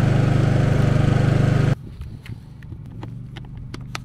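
Westinghouse dual-fuel inverter generator's small engine running steadily with an even rhythmic beat. It cuts off abruptly a little under two seconds in, leaving faint ticks and clicks.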